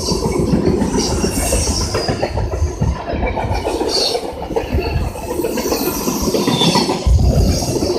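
Union Pacific freight train cars rolling past close by, with a heavy steady rumble and wheels clacking over the rails. Steel wheels squeal on the rails now and then.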